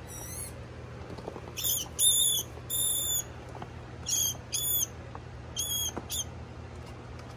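A live feeder rat squeaking in distress while held in feeding tongs: about eight short, high-pitched squeaks spread over several seconds, some in quick pairs, over a low steady hum.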